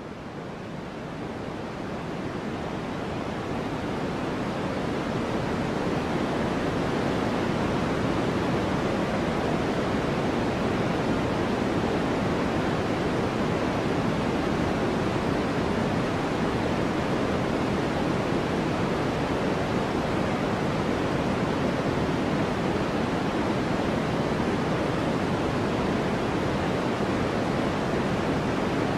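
A steady rushing noise that swells in over the first several seconds, then holds level.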